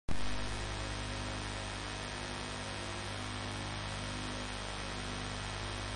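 Steady low electrical mains hum with hiss on the recording, cutting in abruptly at the start with a brief louder moment before settling to an even level.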